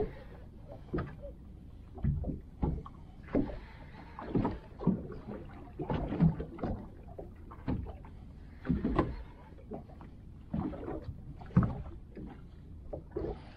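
Water slapping and splashing irregularly against the hull of a small drifting boat, with a hollow knock or splash every second or so.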